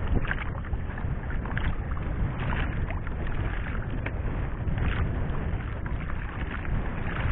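Wind buffeting the microphone over water sounds on a small fishing boat at sea, with a few brief knocks or splashes scattered through.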